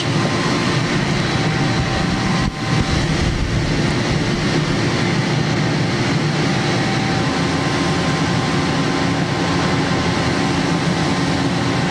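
Steady machine-shop noise from the machines that mill slots in revolver barrel shrouds: an even hiss with several steady hums beneath it. It dips briefly about two and a half seconds in.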